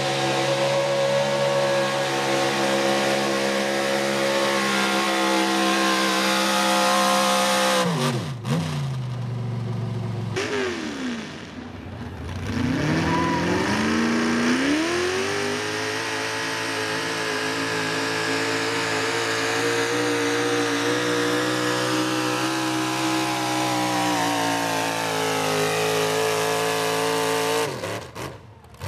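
A pulling vehicle's engine at full throttle during a hook, running at steady high revs. About eight seconds in the pitch drops sharply, then climbs back up and holds high before the engine falls off near the end.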